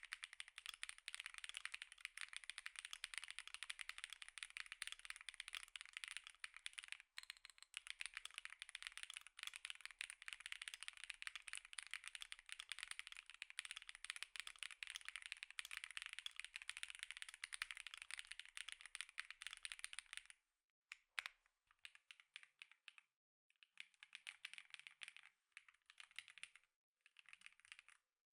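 Fast typing on an Epomaker Tide 65, a gasket-mounted aluminium mechanical keyboard with its stock Epomaker Lemon linear switches: a steady stream of keystrokes for about twenty seconds with a brief break near seven seconds, then short bursts of typing with pauses between them.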